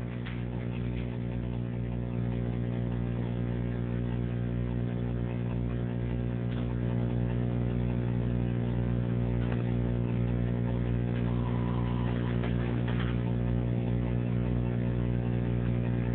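A steady low hum with several even overtones, growing a little louder over the first two seconds and then holding, with a few faint clicks over it.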